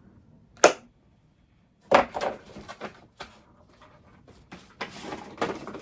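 A gift box and its packaging being handled: a sharp snap a little under a second in, then rustling and light knocks, with more rustling near the end.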